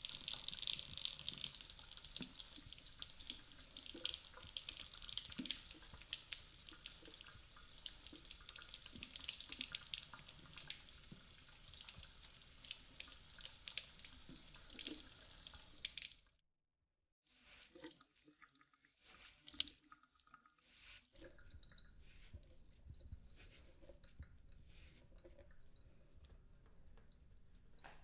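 Kitchen mixer tap running, its water splashing over a Dyson V15 soft roller brush bar as the bar is rinsed. The water stops suddenly about sixteen seconds in, and scattered quieter drips and clicks follow.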